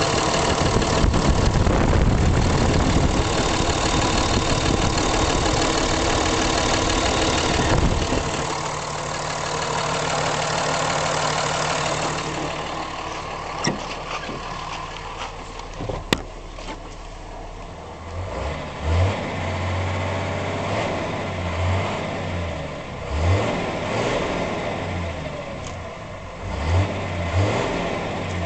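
2005 Dodge Ram's Cummins 5.9 L inline-six diesel running, picked up close to the engine. About eight seconds in the sound drops suddenly to a quieter, lower running note. In the second half a low pulsing comes and goes unevenly.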